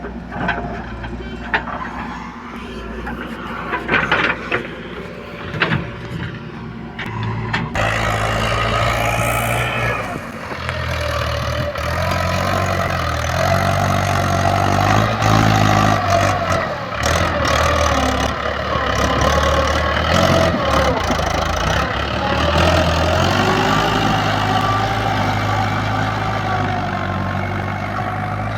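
Diesel engines of a backhoe loader and tractor running, with knocks and clatters during the first several seconds. About seven seconds in the engine sound grows louder and its pitch rises and falls as the machine works under load.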